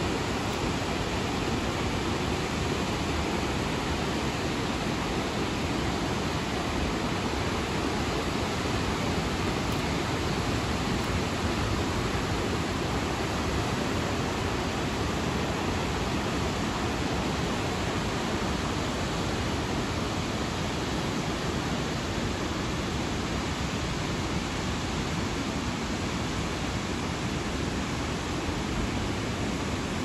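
Iguazu Falls and the white-water river in the gorge below, an even, unbroken rushing of falling and churning water.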